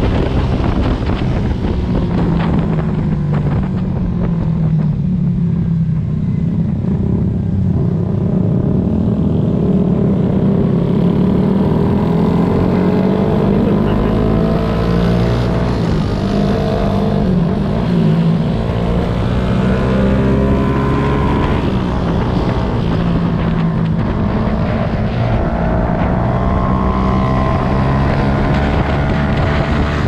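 Honda CBR250RR motorcycle engine running under way, its pitch rising and falling as the rider opens and closes the throttle, with wind noise on the microphone.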